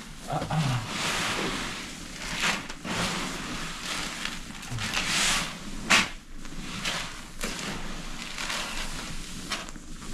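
Dry cattle feed and corn being stirred by hand in a feeder: irregular rustling, swishing strokes of grain, with a sharp knock about six seconds in.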